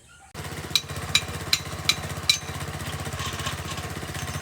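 Small engine of a deep-well drilling rig running steadily, coming in suddenly about a third of a second in. Five sharp metallic clanks fall about two and a half a second apart over the first two seconds.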